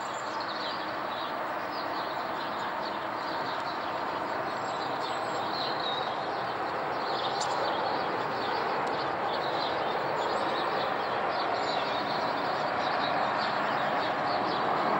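Boeing 737-300's CFM56 turbofan engines heard from the ground as the airliner flies overhead on approach to land: a steady, wide rushing jet noise that grows gradually louder.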